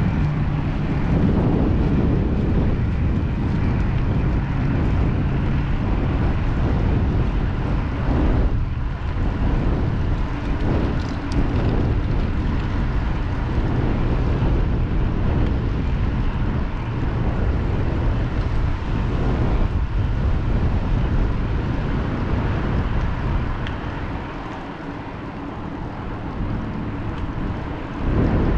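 Wind rumbling and buffeting on a GoPro's microphone as the bike moves along, a steady low roar that eases for a few seconds near the end before returning.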